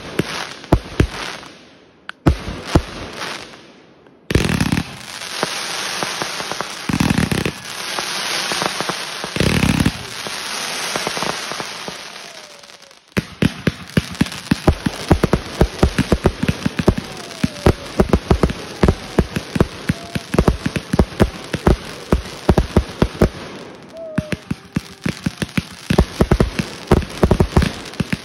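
Backyard consumer fireworks going off. First come scattered sharp bangs, then a steady hiss broken by three deep booms. From about halfway through there is a dense, rapid crackle of many small pops.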